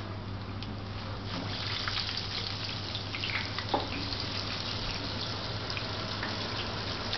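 Battered spiral-cut twist potato frying in a deep fryer of hot oil: a dense sizzle full of small crackles and pops that thickens about a second in as the potato goes into the oil, with one sharp pop near the middle.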